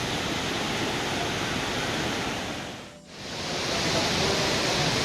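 A waterfall's steady rush of falling water. It fades out briefly about three seconds in and comes back a little louder and brighter.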